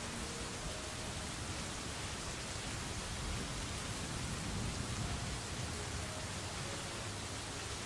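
Steady, even hiss of falling rain, with no breaks or distinct events.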